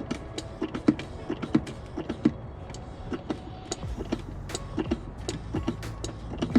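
Hand-operated fluid pump worked stroke after stroke to push new fluid into a BMW Z3's automatic transmission, giving irregular clicks and squeaks about two or three times a second. The pump is getting stiff as it works.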